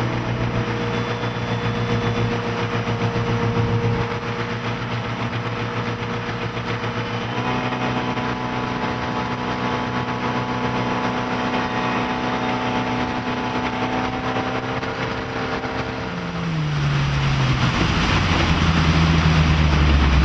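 Volvo Penta 5.0 GI V8 sterndrive engine running under way at a steady pitch, which shifts to a new engine speed about seven seconds in. Near the end the engine note falls and a louder rush of wind and water takes over.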